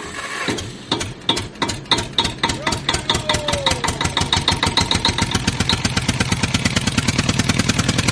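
Synthetic intro sound effect: a train of sharp mechanical ticks that speeds up from a few a second into a fast, even, engine-like pulse over a low hum, with a short falling tone about three seconds in.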